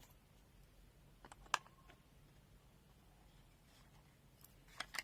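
A few small plastic clicks of AAA batteries being fitted into a multimeter's battery compartment. The sharpest click comes about a second and a half in, and two more come close together near the end.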